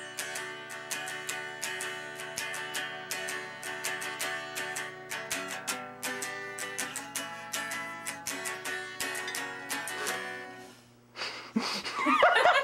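Capoed electric guitar played with picked notes, a busy pattern of ringing chords and single notes; the playing stops about ten and a half seconds in, followed by laughter near the end.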